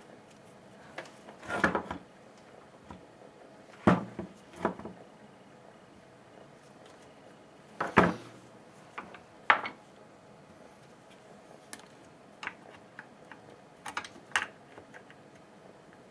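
Scattered clicks, knocks and clatters of small hedge-trimmer parts and hand tools being handled and set down, a few louder knocks among lighter ticks.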